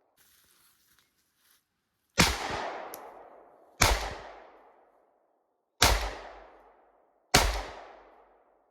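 Four single gunshots from a semi-automatic AR-style firearm, fired one at a time about one and a half to two seconds apart, each crack trailing off in a long echo.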